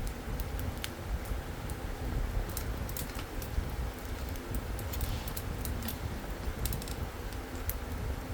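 Burning wood in a campfire crackling, with irregular sharp pops and snaps over a low, steady rumble.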